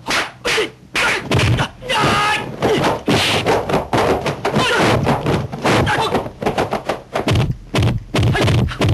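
Dubbed kung fu film fight sound effects: a rapid series of sharp punch and kick thwacks, one after another, with a fighter's shouts and yells between them.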